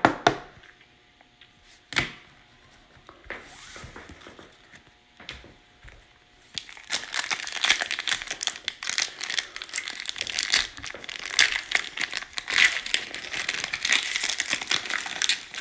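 Foil trading-card pack being torn open and its wrapper crinkled by hand: a dense crackling rustle that starts about six seconds in. Before it, a single sharp tap about two seconds in.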